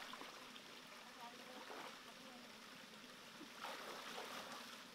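Shallow stream running and trickling over rocks, with water splashing as a hand searches in it about three and a half seconds in.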